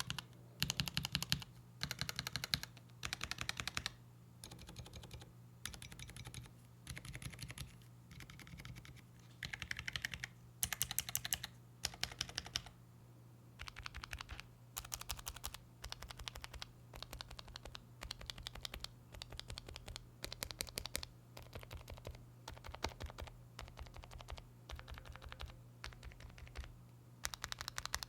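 Gateron mechanical keyboard switches pressed in short bursts of rapid clicks, one switch type after another. First they are pressed on a switch tester with keycaps fitted; after a short pause about halfway, they are pressed mounted in a keyboard without keycaps. A low steady hum runs underneath.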